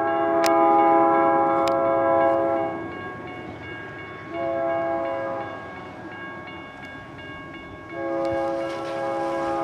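A locomotive air horn sounds the grade-crossing warning as the train approaches: a long multi-note blast ends about three seconds in, a short blast follows about a second and a half later, and another long blast starts near the end. A steady rumble of the train runs underneath.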